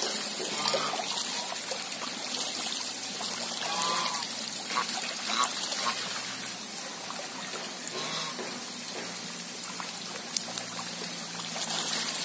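Steady trickling, splashing water on a pond where domestic geese are bathing, with a few brief faint goose calls.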